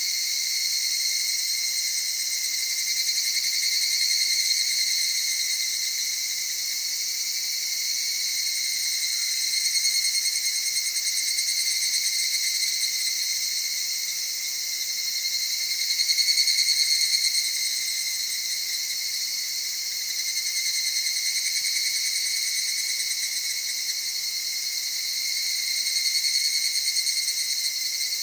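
A chorus of evening cicadas (higurashi) singing: a dense, continuous, high trilling of many overlapping insects that swells and eases several times.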